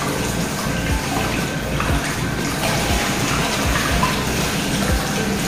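Water gushing steadily out of an upturned bottle in a swirling vortex and splashing into a plastic tub below. The swirl lets air in through the centre, so the bottle empties fast.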